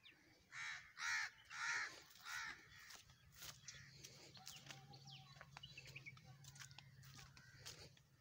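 A crow cawing four times in quick succession, harsh calls about half a second apart, followed by small birds chirping and a low steady hum in the background.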